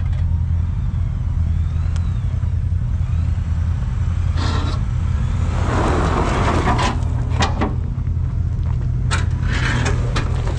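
Off-road vehicle's engine running at low speed with a steady low drone. Several scrapes and knocks come in the second half, the loudest about six seconds in, as the skid plate drags over rock.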